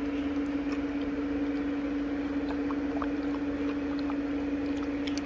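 A steady motor hum held at one pitch over a low rumble, with a few faint light clicks of a dog lapping water from a bowl.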